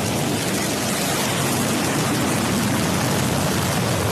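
New Shepard booster's single BE-3 hydrogen-oxygen rocket engine firing at liftoff as the rocket climbs off the pad: a loud, steady rushing noise spread from deep lows to high hiss.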